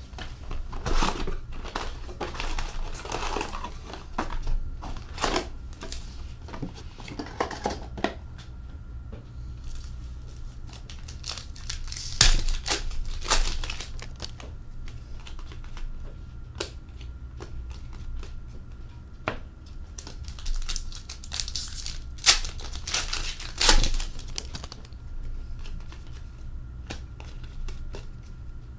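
Hockey card retail box and foil card packs being handled: crinkling and tearing of wrapper and cardboard for the first several seconds, then quieter card handling with a few sharp clicks and snaps.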